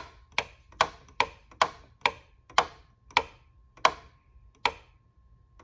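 Gosund smart light switch clicking repeatedly in the 3-way circuit that has stopped working: about ten sharp clicks, quick at first and then further and further apart. A faint steady high tone sits underneath.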